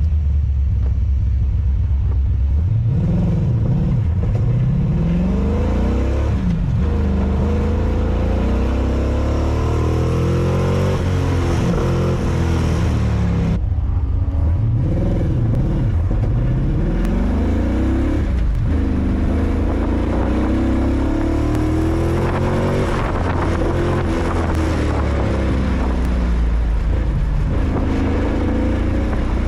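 Corvette V8 engine at racing speed, revving up and dropping back again and again as the car accelerates, shifts and slows for corners.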